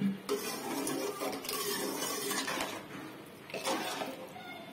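Metal ladle stirring thin, watery curry in a metal pot: liquid sloshing and the ladle scraping the pot, in a long spell and then a shorter one near the end.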